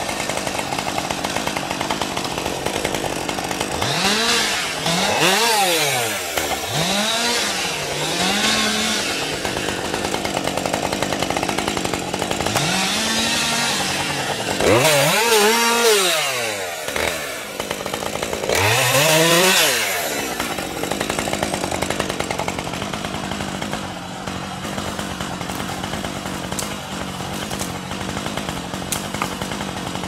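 Husqvarna 550 XP Mark II two-stroke chainsaw idling, revved up and back down in a series of short throttle bursts, then settling to a steady idle for the last third.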